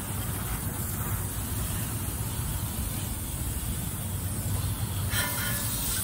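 Water spraying from a garden hose nozzle onto an air-conditioner condenser coil, a steady hiss that rinses loosened dirt out of the fins, with a steady low hum underneath.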